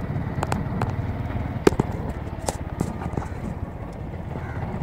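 Wind buffeting the microphone over a steady low rumble of travel outdoors, with scattered sharp clicks and knocks, the loudest about a second and a half in.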